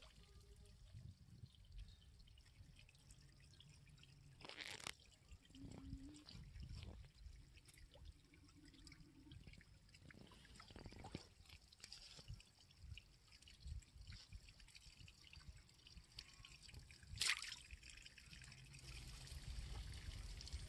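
Faint water sounds of a man wading waist-deep: small drips and trickles, with two brief splashes, one about five seconds in and a louder one near the end.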